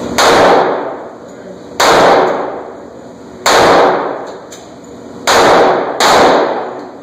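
Five pistol shots fired at steel plate targets, each sharp crack followed by a long echo in the enclosed concrete range. The first four come about a second and a half apart, and the last two in quick succession.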